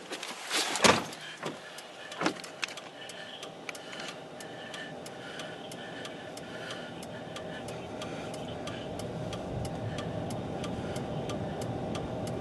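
Vehicle engine and road noise heard from inside the cab, steady and slowly growing louder, with a faint regular ticking about twice a second and a few louder clicks in the first couple of seconds.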